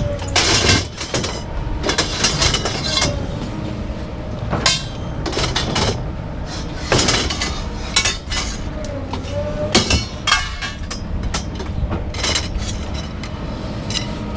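Scrap metal pieces knocking and clinking together as they are worked loose and moved, a dozen or so sharp hits spread irregularly over a steady low hum.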